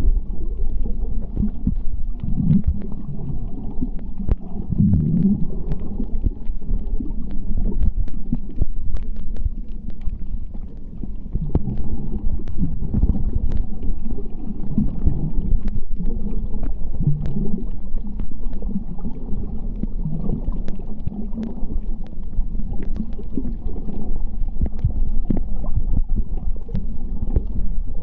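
Underwater sound on a coral reef dive: a low, muffled rumble with gurgling swells every few seconds and many scattered sharp clicks.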